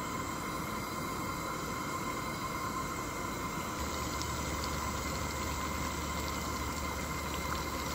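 Water in a pot on a propane camp-stove burner coming to a rolling boil: a steady bubbling noise with a steady tone running under it.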